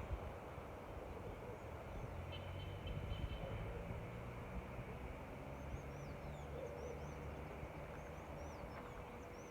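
Birds chirping: a rapid series of short, high, curling calls through the second half, after a brief thin trill a couple of seconds in, over a low steady hum.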